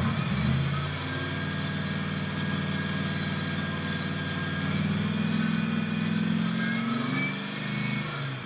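1985 Pontiac Trans Am's 5.0 L V8 running and revved up, its pitch rising about half a second in and again mid-way, then easing back near the end. The revs are a test of the freshly bled power steering for pump noise, and no pump whine stands out over the engine.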